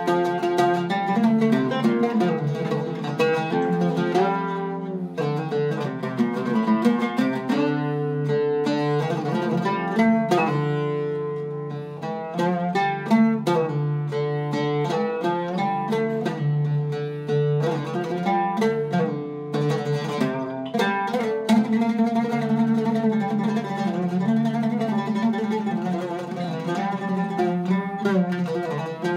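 Iraqi-style Zaryab oud, with a cedar top, wengé and maple back and Kröchner strings, played solo with a plectrum: a steady, continuous run of plucked melodic phrases. The instrument is set up with very low action, the strings close to the fingerboard.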